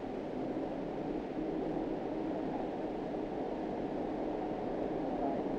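Steady, muffled rushing noise with a faint low hum and no distinct events.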